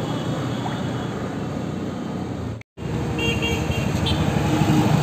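Steady roadside traffic noise. The sound cuts out for an instant a little past halfway, then returns with a brief high tone like a horn toot.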